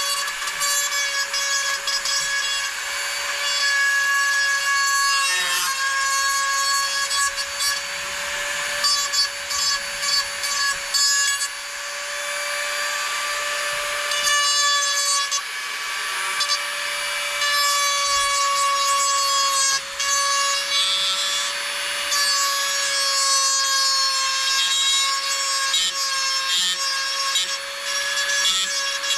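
Handheld rotary tool grinding out the inside of a 2-inch PVC pipe fitting so the pipe can slide through it. The motor whines steadily and rasps on the plastic, getting louder and quieter as the bit bites and eases off.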